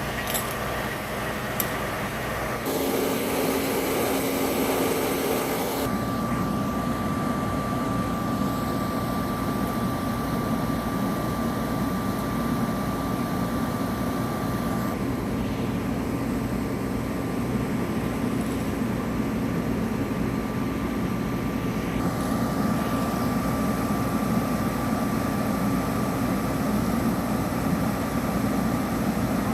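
Fire apparatus diesel engine running steadily, getting louder about three seconds in with a steady low hum added.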